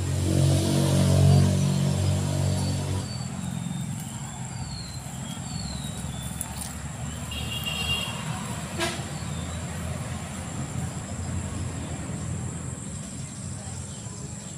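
A motor vehicle's engine running close by, loudest for about the first three seconds and then dropping to a low steady rumble. A few short high chirps and a single click come later.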